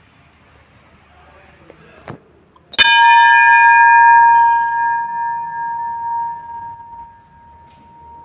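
Hanging brass temple bell struck once about three seconds in, ringing with a clear tone that fades slowly over about five seconds. A light knock comes just before the strike.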